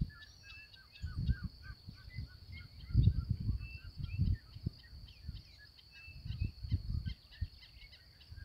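A flock of ducks calling with many short, high calls, over a steady high insect drone. Low rumbling noise on the microphone comes and goes and is loudest about three seconds in.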